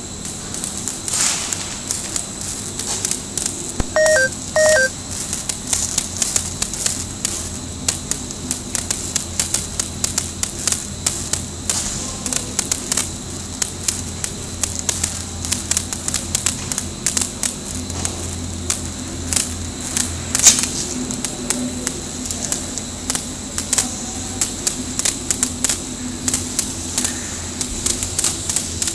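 A pallet stretch-wrapping line with roller conveyors running: a steady machine hum under a continual, irregular clatter of sharp clicks. About four seconds in come two short electronic beeps, half a second apart.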